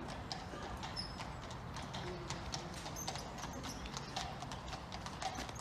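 Hooves of the horses pulling a white horse-drawn hearse, clip-clopping in a quick, irregular run of sharp strikes.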